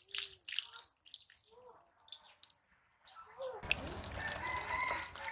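Chickens clucking with short calls. About three and a half seconds in, water from a hand pump starts splashing onto fish pieces being rinsed in a steel plate, while a rooster crows in a long drawn-out call.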